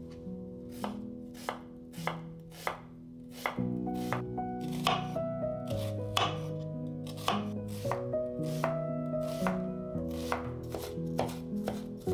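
A kitchen knife chopping vegetables on a cutting board in a steady rhythm, a little under two strokes a second.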